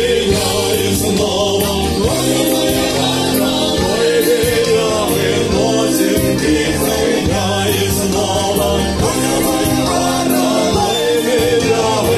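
Music: a song sung by a choir over instrumental accompaniment, continuing without a break.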